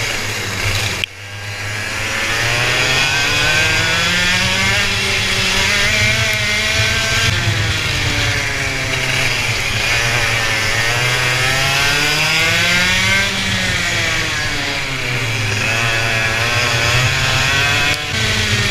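Racing engine at high revs, its pitch climbing and falling every few seconds as it accelerates out of corners and lifts off into them while lapping the track. The sound cuts out sharply about a second in, then comes back.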